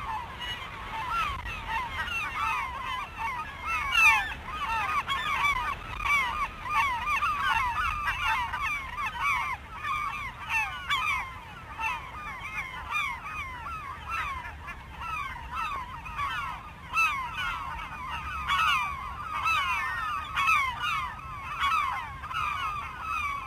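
A large flock of birds calling all at once: many short, falling, honk-like calls overlap continuously. The sound cuts off abruptly at the end.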